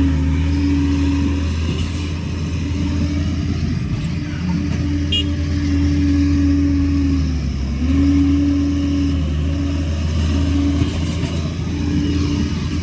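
Liebherr 746 crawler dozer's diesel engine running steadily under work, its note dipping briefly and recovering a few times as the load changes.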